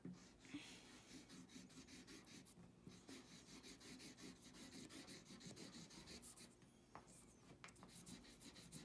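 Felt-tip marker scribbling on paper in rapid back-and-forth strokes, faint and scratchy, thinning out near the end.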